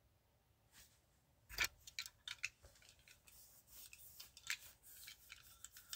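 Faint, irregular light clicks and taps with quiet between them, the loudest one about one and a half seconds in.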